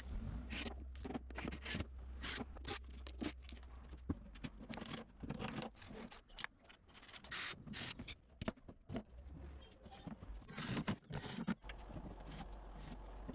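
Many short, irregular scraping and rubbing strokes, with a few sharper knocks, over a low steady hum.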